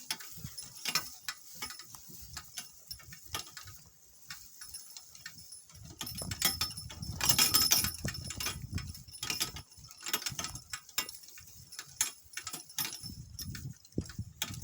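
Donkey-drawn cart on the move: harness and cart fittings clinking and rattling with scattered knocks, and a louder rumble about six to nine seconds in.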